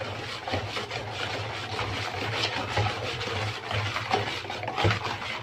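Wire balloon whisk beating thin cake batter in a plastic mixing bowl, the wires scraping the bowl in quick, rhythmic strokes.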